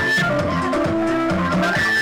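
Dance music with drums and a steady beat.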